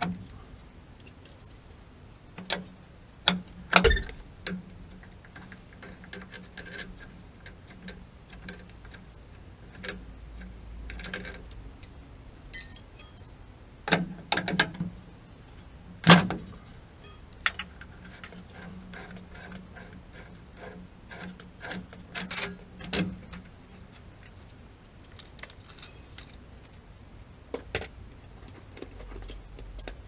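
Metal hand tools clicking and clinking as a screwdriver works at a gas water heater's control valve: irregular sharp clicks and taps, with the loudest knocks about four seconds in and again about sixteen seconds in.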